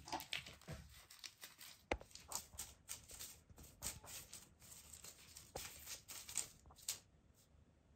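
A kitten's paws and claws scrabbling and skittering on a hard floor: quick scratchy rustles and taps, with two sharper clicks, dying away about seven seconds in.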